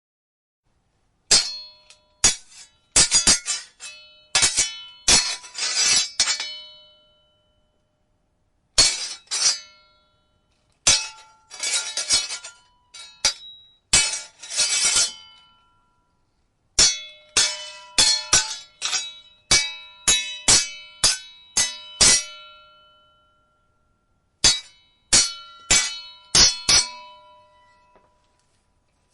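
Steel sword blades clashing in quick flurries of several strikes, each hit ringing briefly, with pauses of a second or two between flurries.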